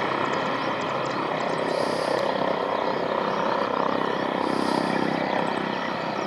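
Jet aircraft turbine noise: a steady whine of several high tones over a broad rush, which swells about halfway through. A soft high hiss repeats every two to three seconds.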